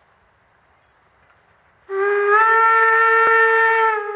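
Steam whistle of the steam locomotive 50 307, a German class 50 2-10-0, blowing one long blast of about two seconds that starts abruptly about two seconds in, its pitch rising slightly at the start, then a brief second toot right at the end. Before the whistle there is only a faint hiss.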